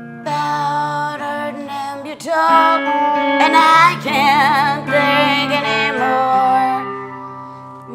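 A woman singing over her own strummed electric guitar chords, her voice swelling in the middle into long held notes with vibrato, then easing off near the end.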